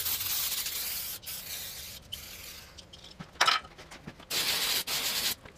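Aerosol brake cleaner spraying onto a bare engine block in bursts: a long hiss of about two and a half seconds, a short burst past the middle, and another spray of about a second near the end.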